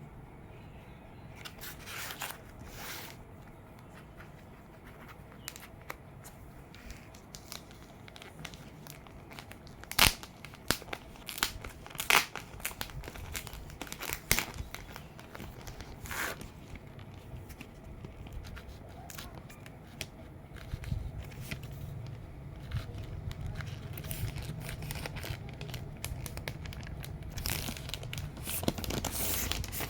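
Packaging being torn and crinkled by hand while a vinyl record is unboxed: irregular rustling and crackling, with a few sharp loud snaps in the middle.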